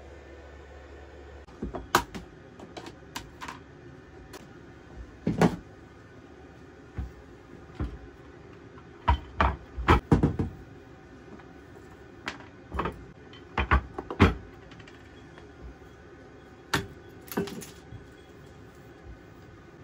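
Scattered knocks and clatters of kitchen work in a small wood-panelled caravan kitchen: cupboard doors opening and shutting and things being set down on the wooden counter. The loudest knocks come in a cluster near the middle and again about two-thirds of the way through.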